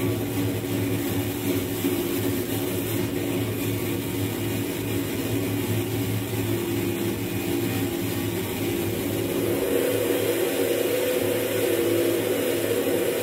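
Experimental electronic music from a live frakMSP improvisation: a looped drum beat heavily processed through software synthesizers into a steady, whirring drone with a low hum and held tones above it. A higher held tone joins about ten seconds in.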